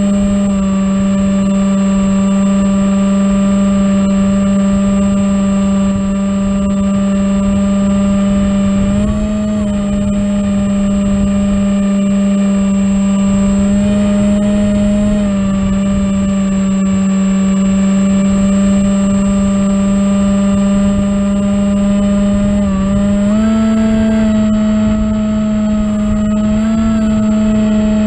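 Electric motor and propeller of an FPV flying wing running under power at a 75% throttle limit, heard from the onboard camera as a steady pitched drone over low wind rumble. The pitch steps up and down slightly a few times as the throttle changes.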